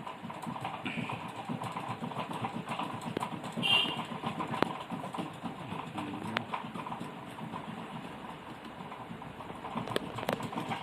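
Desoldering capacitors from a TV circuit board: a continuous rapid low rattle with a faint steady hum, a few sharp clicks of tools on the board, and a brief louder scrape about four seconds in.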